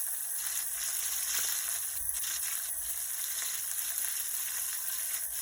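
Floured red snapper frying in hot oil, a steady crackling sizzle.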